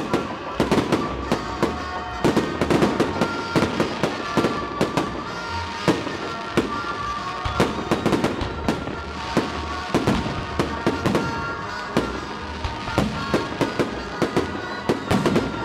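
Fireworks salute: a dense, irregular run of bangs and crackles, several a second, with no let-up.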